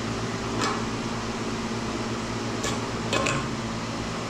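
A few light metallic clinks and clicks of hand tools being handled, about four in all, some with a brief ring, over a steady fan hum.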